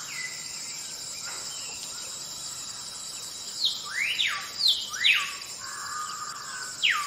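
Birds calling: a handful of short whistled notes that sweep quickly up or down in pitch, most of them in the second half, over a steady high insect drone.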